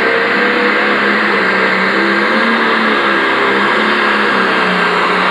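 Turbocharged diesel engine of a Pro Stock pulling tractor running at full throttle under load, pulling down the track. Its engine note wavers slightly up and down.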